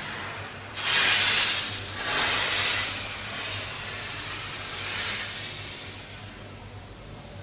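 Drawing strokes dragged across paper, giving hissing scrapes: two loud strokes about a second and two seconds in, then a fainter, longer one that fades away. A low steady hum sits underneath.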